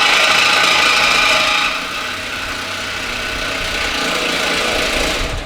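A car engine running steadily, with a hiss over it; it eases off about two seconds in and then builds a little again.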